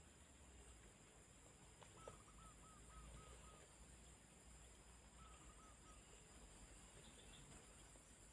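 Near silence with a faint bird call: a quick run of six short, arched notes about two seconds in, then four more a couple of seconds later. A faint click comes just before the first run.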